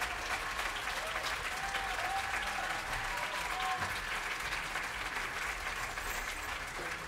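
Concert audience applauding, with a few short cheers about two to four seconds in.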